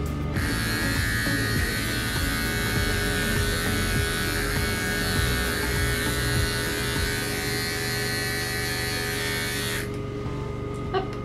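Wahl Bravura cordless pet clipper with a #40 blade running steadily as it trims a puppy's paw pads, a continuous electric buzz. Its higher buzz drops out briefly about ten seconds in.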